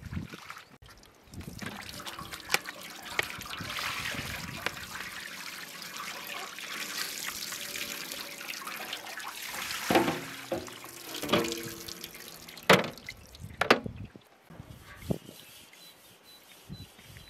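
Water pouring and splashing as raw chicken pieces are rinsed and drained in aluminium basins, with sharp clanks and brief ringing from the metal pans. It dies down near the end.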